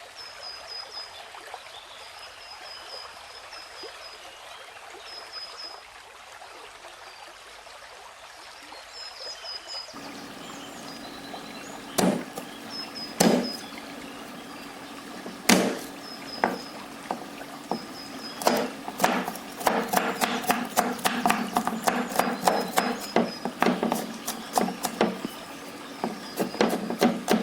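Running water for about ten seconds, with faint high chirping over it. Then a knife striking a cutting board: a few single chops, then quick repeated chopping.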